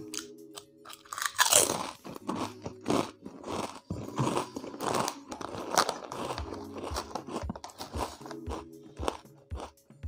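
Crunching and chewing of home-fried potato chips: a run of crisp bites and chews, the loudest about one and a half seconds in.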